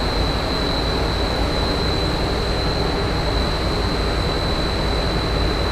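Steady machinery noise on an ATV dyno stand: an even rush with a low rumble and a constant high whine, holding level throughout.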